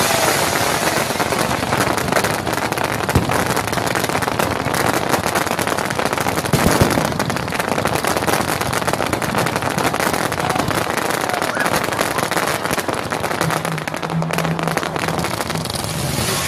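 Fireworks going off in a dense, steady crackle of many small pops, with a louder burst about seven seconds in.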